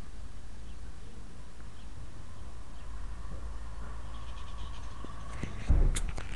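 Steady low rumble on a tiny camera's built-in microphone as it is held and panned, with faint high chirps in the second half. Near the end comes a sudden thump and a few sharp clicks as the camera itself is knocked and handled.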